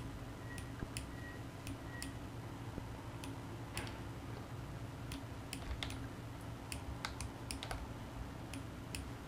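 Sharp, irregular clicks from a computer mouse and keyboard, about two a second, over a low steady hum.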